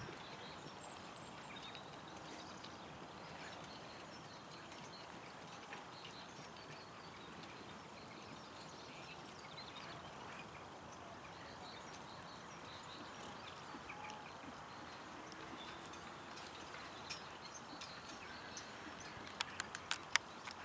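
A horse in harness trotting on grass and pulling a two-wheeled driving carriage, heard faintly against open-air background noise. A few sharp clicks come near the end.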